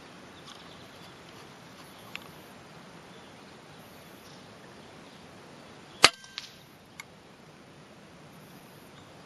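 Edgun Matador PCP air rifle firing one sharp, loud shot about six seconds in, followed by two fainter clicks. A small click comes about two seconds in, over a steady background hiss.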